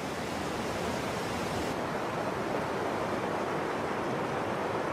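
Whitewater rapids rushing: a steady, even wash of churning river water.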